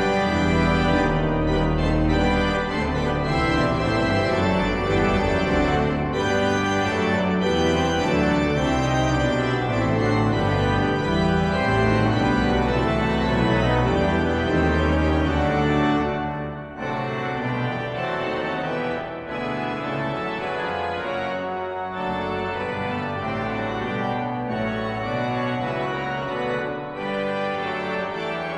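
Pipe organ playing a piece, sustained chords with deep pedal bass notes for the first half; about halfway through the bass drops away and the music goes on more lightly and a little quieter.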